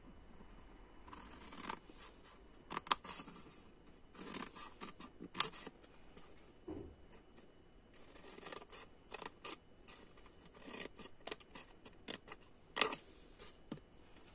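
Scissors snipping through white cardstock in an irregular series of short cuts, trimming box flaps along the fold lines. The sharpest snips come about three seconds in, about five and a half seconds in, and near the end.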